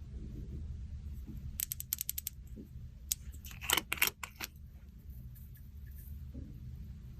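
Slime being pressed and mixed by hand, giving a quick run of small crackling clicks and pops, then a louder cluster of them a few seconds in, over a steady low hum.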